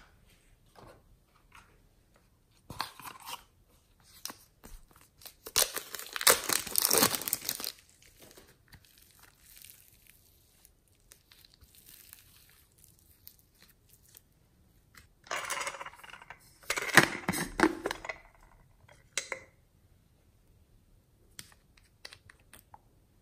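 Slime being squished, pulled and torn apart by hand, in several bursts a second or two long with quiet between. A few light clicks near the end as a small plastic bottle is handled.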